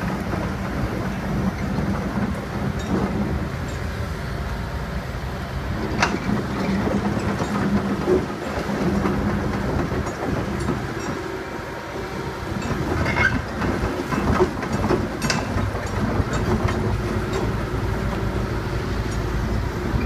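Hitachi Zaxis tracked excavator's diesel engine running steadily under load, with a held low hum, as it works debris in the river. A few sharp metallic clanks and knocks from the machine stand out over the engine.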